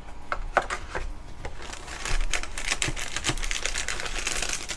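Hands handling the cardboard and plastic contents of a collector's box: a few light clicks and taps, then a steadier papery, plastic rustle from about two seconds in.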